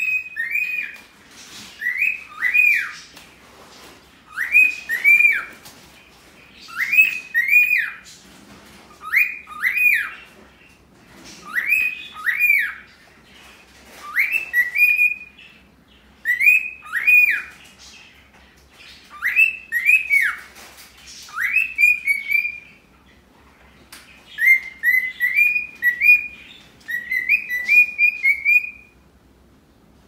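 Cockatiel whistling the two-note wolf whistle over and over, about every two and a half seconds, each note a rising then falling glide. Near the end it switches to a run of short quick rising whistles, then stops.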